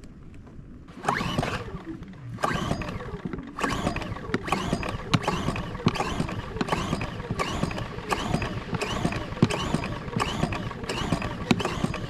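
Recoil pull-starter of a Westinghouse portable generator being pulled over and over, a ratcheting whirr on each stroke, starting about a second in and repeating roughly every half second or so. No steady engine running is heard: the engine has not caught.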